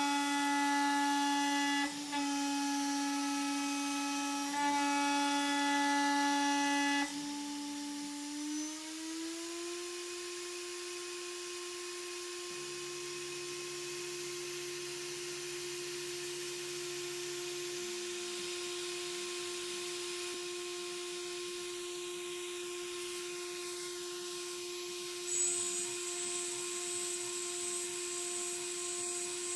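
High-speed CNC router spindle (CNCDepot S30C) milling aluminum: a steady whine with strong overtones. About eight seconds in, the pitch rises as the spindle speeds up, and it runs on as a steadier, quieter whine. A high hiss joins near the end.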